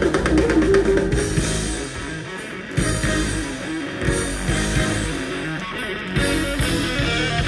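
Live rock band playing electric guitar, bass guitar and drums, amplified through the stage PA.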